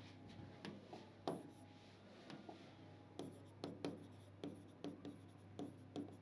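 Chalk writing on a chalkboard: faint, irregular short taps and scratches as a word is written, over a faint steady low hum.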